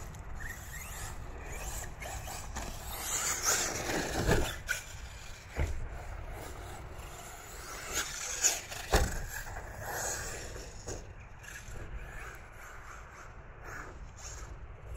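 Electric 1/8-scale RC truggy (TLR 8IGHT-XTE) racing on the track, its motor whining as it accelerates and slows. A few sharp thuds from the car landing jumps, loudest about four, five and a half and nine seconds in.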